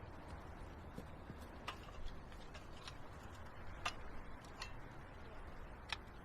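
Seven or so light, sharp clicks at uneven intervals over a low steady rumble.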